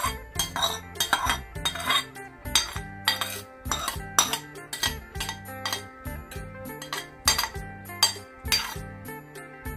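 A metal spoon and a wooden board knocking and scraping against a metal mixing bowl as shredded green mango is scraped in. The clinks come irregularly, about one or two a second, over background music.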